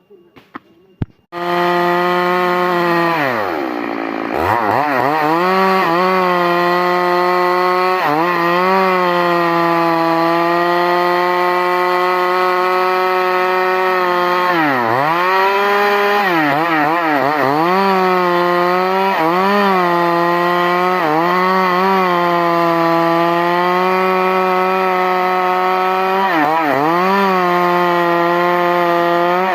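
Stihl MS 382 two-stroke chainsaw starting up about a second in and running at high revs. The revs drop briefly and climb back several times as the throttle is let off and opened again.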